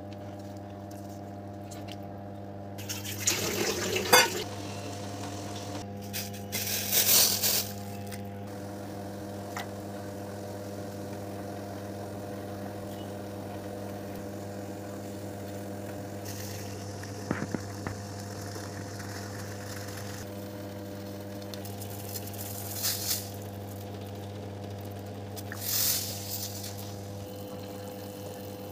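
A steady low electrical hum with its overtones, broken by several short noisy bursts, the loudest about four seconds in.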